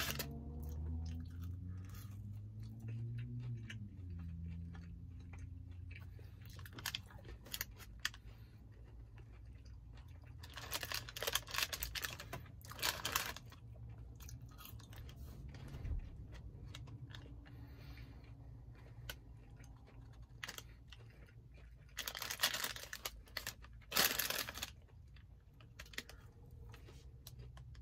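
Fried cheese curds being chewed with crunching, with occasional crinkling of a paper bag as he reaches in. Two loud clusters of crunching come about a third of the way in and again near the end, over a low steady hum.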